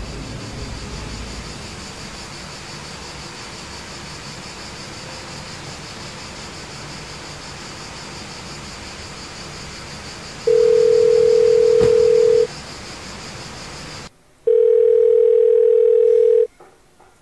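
Steady outdoor background noise. About ten seconds in, a telephone ringback tone starts: a single steady tone, two seconds on and two seconds off, heard twice. The background drops away just before the second tone.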